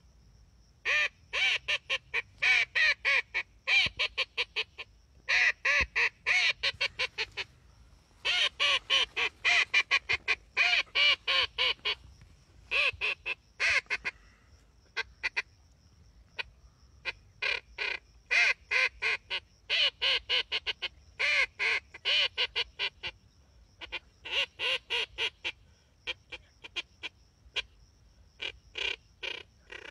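Reyoka duck call blown to imitate a female Eurasian teal: runs of short, rapid quacking notes, repeated in bursts of a second or two with brief pauses between them.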